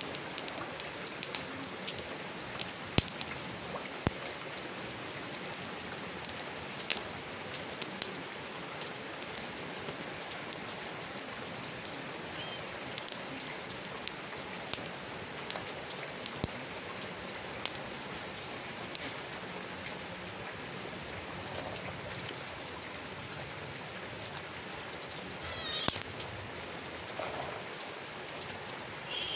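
Steady rain falling, with a wood campfire crackling and popping in sharp single snaps, more often in the first half. A short wavering animal call comes twice near the end.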